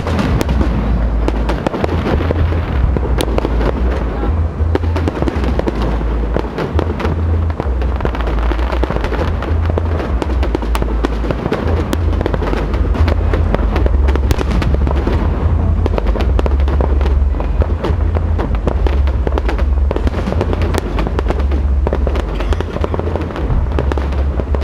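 Fireworks display: aerial shells bursting one after another, a continuous run of bangs and crackles with a steady low rumble underneath.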